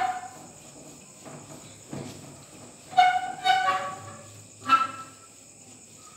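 Whiteboard being wiped clean, with a few short, high squeaks as the wiping hand rubs across the board, over a faint steady hum.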